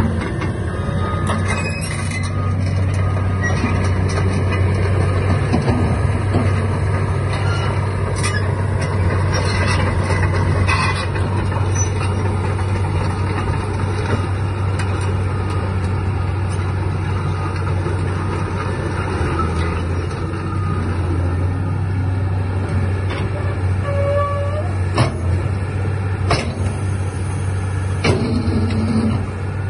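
Caterpillar 320CL excavator's six-cylinder diesel engine running steadily with a deep hum as the machine swings its boom and house and turns on its tracks. Occasional short clicks and knocks come from the working machine, several of them near the end.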